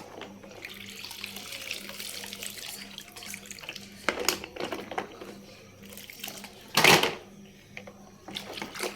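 Water running and splashing as toy cars are washed, with a few light knocks and one loud, short splash-like burst about seven seconds in.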